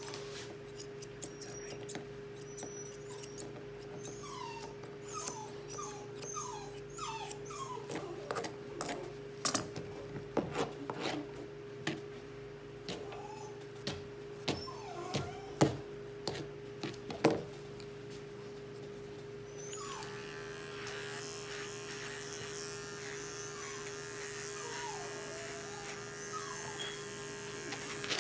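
English Cocker Spaniel puppy whimpering in short, falling whines, with sharp snips of grooming scissors trimming the foot hair through the middle stretch. From about twenty seconds in, a steady electric buzz runs under the whines.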